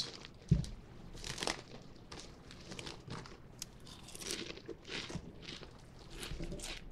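A crinkly potato-chip bag being handled, with a dull thump about half a second in, then Lay's potato chips being bitten and crunched close to the microphone in a run of short crackly crunches.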